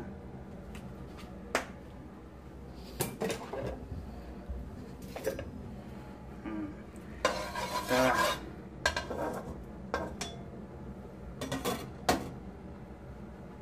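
Cookware and utensils handled on a stove: scattered metal knocks and clinks of a pan and cutlery, with a longer rattling clatter about seven to eight seconds in, while cooking oil heats in the pan.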